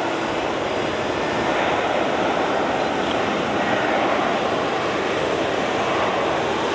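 Boeing 777-300 jet engines running with a steady rushing noise.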